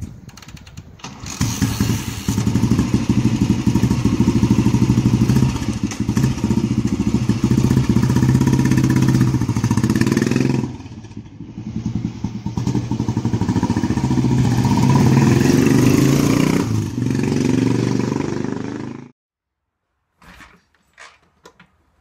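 Royal Enfield G2 Bullet's single-cylinder engine running, its revs dropping back twice and rising again, then shut off abruptly about three seconds before the end, leaving a few faint clicks.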